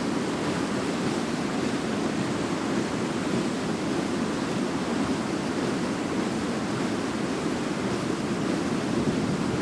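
Fast-flowing river water rushing steadily, a continuous even roar with no breaks.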